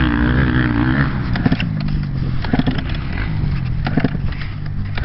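Kawasaki KX65 dirt bike's small two-stroke single-cylinder engine idling steadily while the bike sits still.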